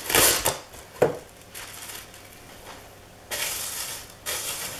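Glad Press'n Seal plastic wrap rustling and crinkling as it is pulled off and pressed down over a glass measuring bowl, in two stretches, with a single sharp knock about a second in.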